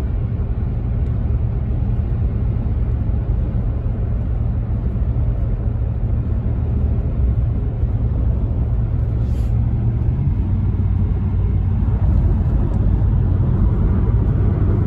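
Steady low road and engine rumble heard inside a moving car's cabin, with a slight shift in its pitch about ten seconds in.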